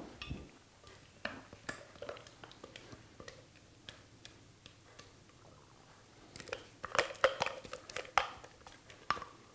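Spatula scraping thick dressing out of a blender jar, with scattered light taps and knocks against the jar that come thicker and louder in the last few seconds.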